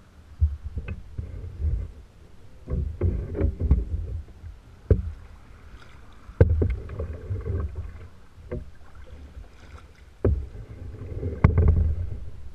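Kayak being paddled: paddle strokes splash and slosh water at the hull in irregular bursts every second or two, with several sharp knocks among them.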